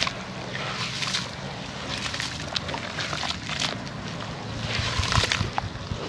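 Hands sloshing and squeezing crumbled concrete in a shallow plastic tub of muddy water, with irregular splashes and small crackles.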